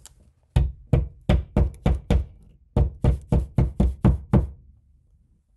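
Claw hammer tapping the nail of a small plastic cable clip into the wall to hold a black Ethernet cable: two runs of quick, sharp taps, about a dozen in all, with a short pause about two and a half seconds in.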